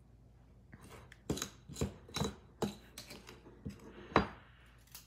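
A metal dough scoop clicking and knocking against the pots: a series of sharp, separate metallic clicks, the loudest near the end.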